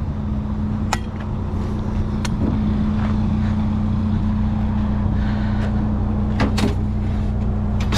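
A vehicle engine idling steadily, with a few sharp knocks and clanks about a second in, a little after two seconds, and twice in quick succession near the end.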